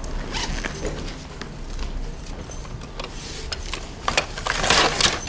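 Gear being handled in an open equipment bag: scattered small clicks and knocks, with a louder rustling scrape near the end.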